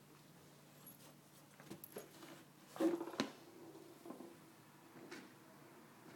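A Cavalier King Charles Spaniel scuffling and pawing at a small toy on a fluffy bed and wooden floorboards: scattered soft taps and thumps, the loudest cluster about three seconds in.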